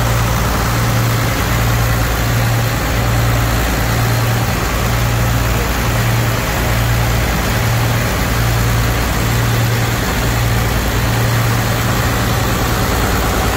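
Large multi-cylinder inboard diesel engines of a purse-seine fishing boat running steadily: a deep, loud drone that throbs in a regular beat a little more than once a second.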